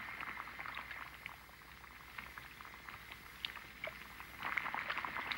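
Fire crackling and popping under a cauldron of milk being heated for cheese, sparse clicks over a faint hiss, thinning out in the middle and growing busier again near the end.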